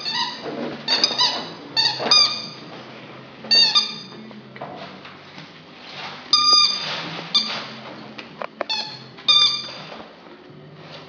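A puppy biting a squeaky dog toy, which squeaks about seven times at uneven intervals with a high, shrill note. Softer scuffling and chewing noises come between the squeaks.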